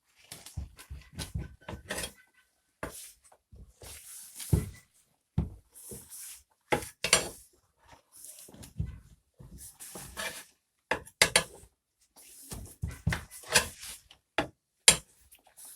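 Tyre levers and a screwdriver clanking and scraping against a Dnepr/Ural motorcycle wheel rim as the tyre bead is levered over it: irregular sharp metal knocks with stretches of scraping between them, and a brief ringing of metal about a second in.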